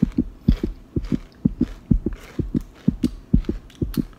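Doritos Hot Mustard tortilla chips being chewed close to the microphone: a steady rhythm of low crunching thumps, about four a second.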